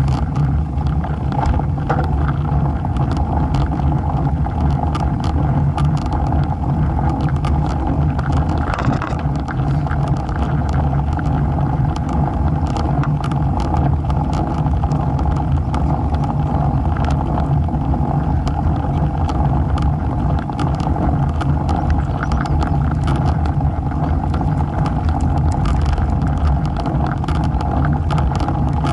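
Steady low rumble of wind on a bike-mounted camera's microphone and road-bike tyres rolling on asphalt, with scattered small clicks and rattles.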